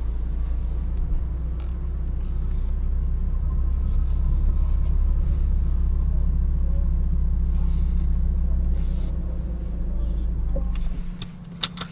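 Steady low rumble of a car, heard from inside, that drops away near the end, with a few faint clicks.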